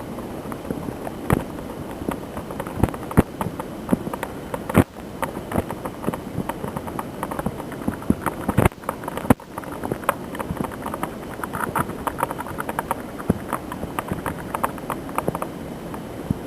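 Storm wind buffeting the microphone with a steady rushing noise, broken by many irregular crackles and pops from the wind-distorted audio.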